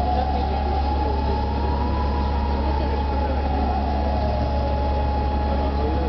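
Rocket-warning air-raid siren wailing, one tone that slowly rises and then falls before holding steady, over a constant low rumble.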